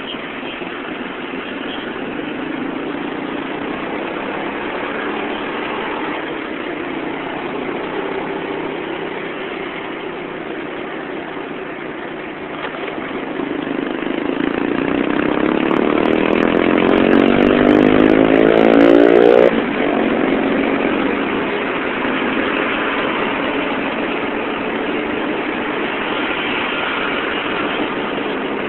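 Motorcycle engine running in dense traffic, with the hum of other vehicles around it. About halfway through it speeds up for several seconds, its note rising and growing louder, then drops off abruptly.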